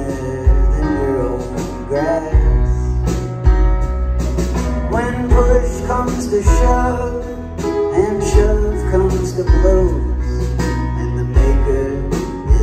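Live rock band playing a slow song: sustained bass notes, drums, guitar and keyboard, with a sung vocal over them.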